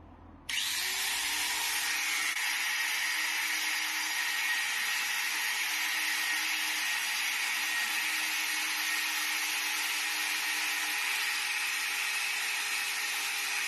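Electric grinder starting up about half a second in and running steadily, grinding down an oversized carbon brush so it will fit the drill's brush holder, with a steady hiss of abrasive on carbon over the motor's hum.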